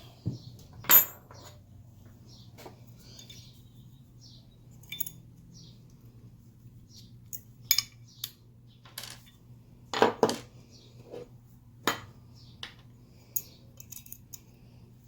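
Metal pistol parts and tools clicking and clinking as a handgun is worked on by hand: scattered separate knocks, a few ringing briefly, over a faint steady hum.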